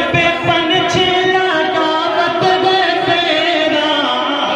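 A naat being sung: a Bhojpuri devotional song in praise of the Prophet. A single voice holds long, drawn-out notes that bend in pitch, over a low pulsing beat in the first couple of seconds.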